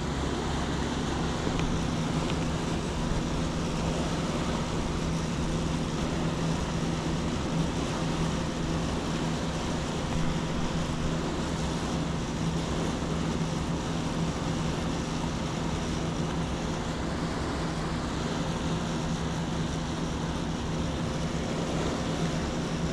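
Steady rush of river water with a constant low hum underneath, unchanging throughout.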